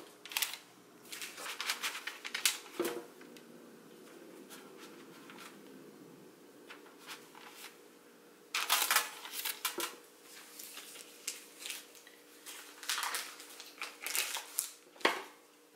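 Parchment paper rustling and crinkling in a metal baking pan in short bursts as small squares of cheese are set down on it by hand, over a faint steady hum.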